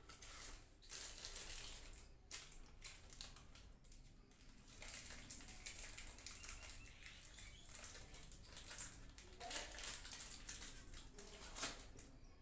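Irregular rustling with small clicks and taps as things are handled off to one side, and one sharper click near the end.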